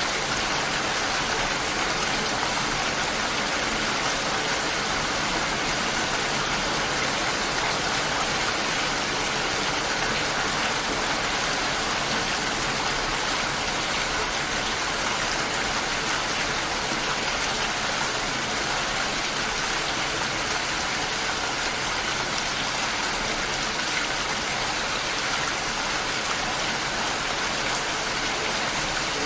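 Steady light rain falling, an even hiss of drops with no thunder and no music.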